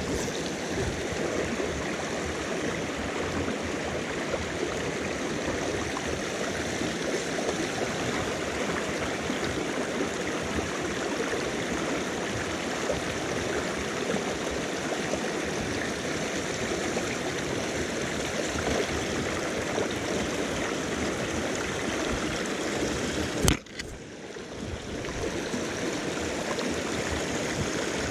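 Rocky river rushing over small cascades and rapids, a steady rush of water. Near the end a single sharp knock, after which the water sound briefly drops and then comes back.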